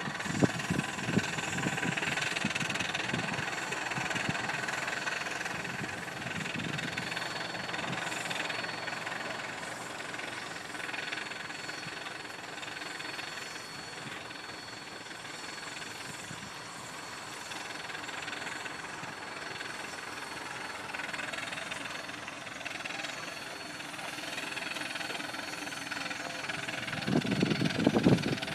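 1907 Avery 18 hp undermounted steam traction engine working under load pulling a plow, its exhaust chuffing at a distance. The chuffs come through strongest at the start and again near the end.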